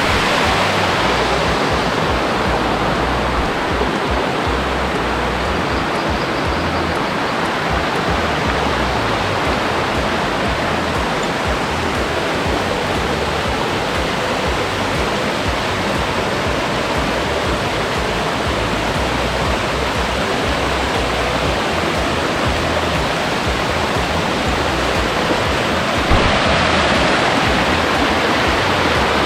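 Waterfall: a steady, loud rush of water cascading over rock, growing a little louder near the end.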